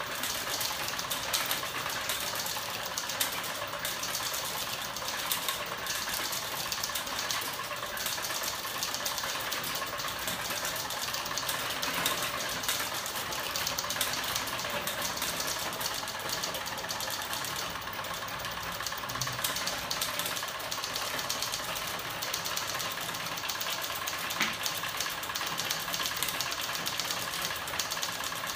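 Electric-motor-driven crank-and-wheel mechanism with an aluminium frame running at speed, giving a steady fast mechanical clatter of rattling metal parts.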